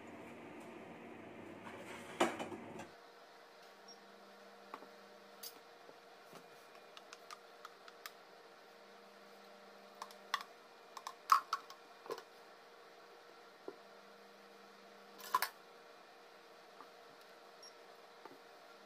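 Scattered soft knocks and clicks of plastic jugs and containers being picked up and set down on a cloth-covered table, loudest about two seconds in, in a cluster around ten to twelve seconds, and again near fifteen seconds. A faint steady hiss stops about three seconds in.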